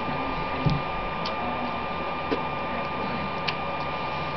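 Steady background hiss with a thin, steady high whine, broken by a few faint clicks and a soft low thump under a second in.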